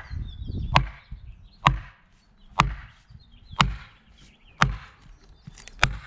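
Axe striking a felling wedge driven into the back cut of a tree, six sharp blows about a second apart, to tip the tree over.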